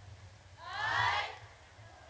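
A single drawn-out chanted vocal call, about a second in, rising slightly in pitch, over a low steady rumble. It is the kind of call (kāhea) that cues the start of a hula kahiko chant.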